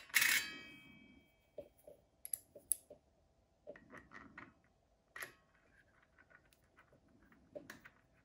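A hex key and hands working at the blade arbor of a Milwaukee M18 Fuel circular saw (M18FCS66). It opens with one sharp metallic clink that rings for about a second, then gives scattered small clicks and taps.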